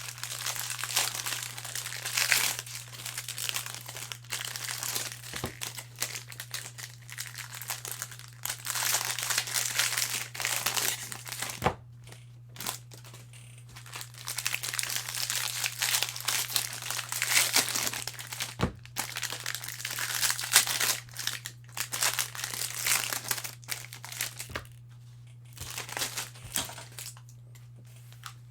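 Foil wrappers of baseball card packs crinkling as they are handled and opened, in stretches with short pauses and a few sharp clicks.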